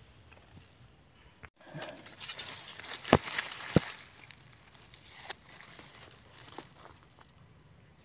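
Steady high-pitched insect buzzing, with dry leaves and grass rustling and two sharp snaps about three seconds in as a hand works through forest litter to pick a mushroom. The sound cuts out for a moment about a second and a half in.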